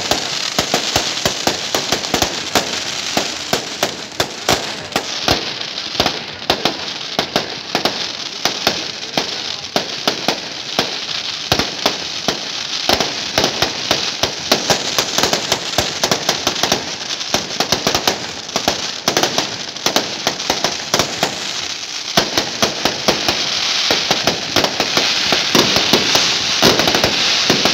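Fireworks finale: many aerial shells bursting in rapid, overlapping succession, with sharp bangs over continuous crackling.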